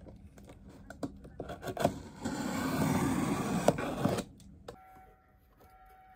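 A cardboard shipping box being slit open with a box cutter. A few scratchy clicks come first, then about two seconds of loud scraping and tearing as the blade runs through the tape and cardboard, which stops suddenly.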